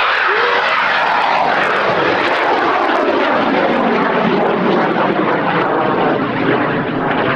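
Loud, steady rushing noise of a high-power rocket motor burning after liftoff, its sound growing duller and lower over the seconds as the rocket climbs away.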